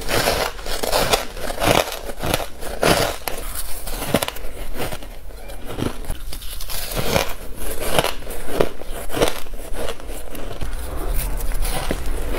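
Soft shaved ice being bitten and chewed, close up: a run of crisp, irregular crunches, several a second, with a quieter stretch about halfway through.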